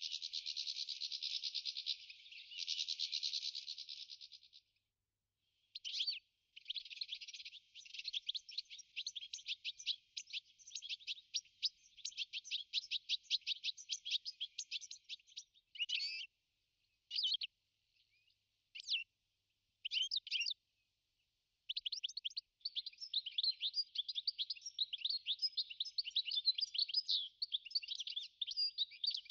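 European goldfinch singing: long runs of fast, high twittering notes. In the middle the song breaks into a few short separate phrases with pauses between them, then picks up again into a long run near the end.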